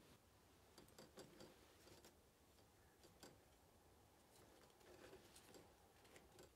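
Faint, irregular light clicks and taps from wooden chopsticks touching the wire grill and the cakes on it as the cakes are turned over charcoal.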